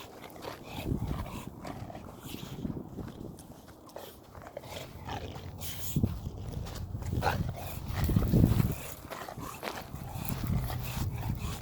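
Wind gusting over the microphone, a low buffeting rumble that swells and falls, strongest about eight seconds in.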